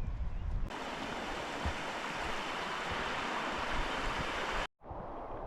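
Steady rushing of a fast-flowing river or waterfall over rocks, coming in suddenly less than a second in after a little wind rumble on the microphone, and cutting off abruptly near the end.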